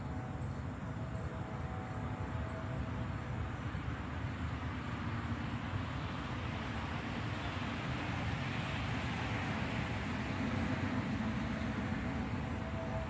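Distant road traffic: a steady low rumble, with one vehicle passing that swells up and fades away about eight to eleven seconds in.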